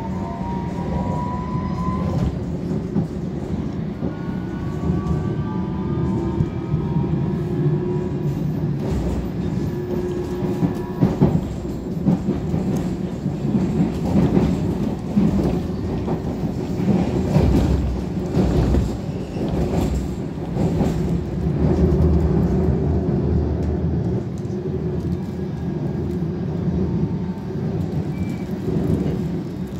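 London Underground District Line train heard from inside the carriage as it pulls away from a station. A whine rises in pitch over the first couple of seconds as it accelerates, then it runs on with a steady rumble and clicking of the wheels over the rails.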